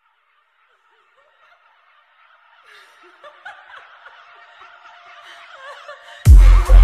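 Riddim dubstep track opening with a faint snickering laugh sample that grows louder. About six seconds in, the heavy bass drop cuts in with a deep, pulsing beat.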